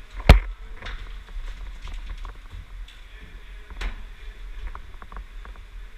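Airsoft gun shots: one loud sharp crack about a third of a second in and a fainter one near four seconds, with footsteps and gear rustling between them.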